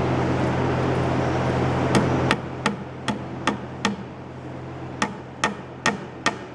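Electric cable-hoist motor of a home-built elevator running with a steady hum, cutting off a little over two seconds in. A series of sharp knocks follows, about two to three a second, with a short pause in the middle.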